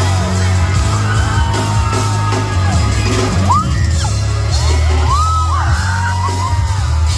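Live concert music through a big PA with a heavy, steady bass, and the crowd's screams and whoops rising and falling over it.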